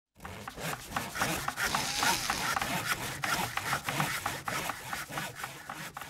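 Tools working wood: a quick run of scraping and rasping strokes with sharp taps and knocks in between, dying away near the end.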